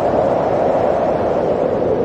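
Blizzard wind blowing steadily: a dense rushing noise with a low tone in it that sinks slightly in pitch.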